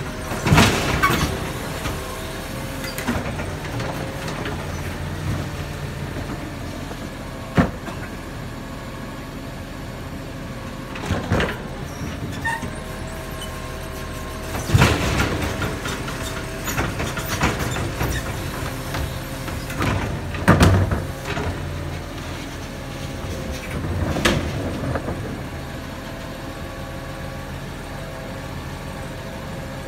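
Garbage truck's automated side-loader arm (Labrie Automizer) lifting a wheeled trash cart, tipping it over the hopper and lowering it back to the curb, over the truck's steady running engine. Several sharp bangs punctuate the cycle, loudest around the dump as the cart knocks against the arm and hopper.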